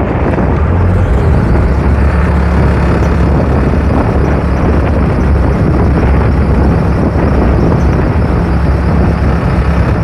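Case 580 Super L backhoe loader's diesel engine idling steadily, a loud, even low hum.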